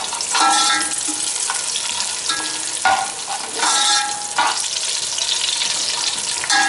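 Browned onions and whole spices sizzling in hot oil in an aluminium pot, stirred with a metal slotted spatula that scrapes across the pot's bottom in several louder strokes over the steady sizzle.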